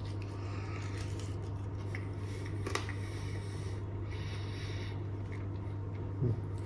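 Faint rubbing and handling noise, with a single small click about two and a half seconds in, as fingers pick meat off a fried chicken wing, over a steady low hum.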